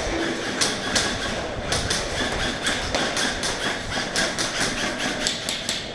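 Airsoft guns firing: an irregular string of sharp cracks, roughly three or four a second, over the steady din of an indoor game.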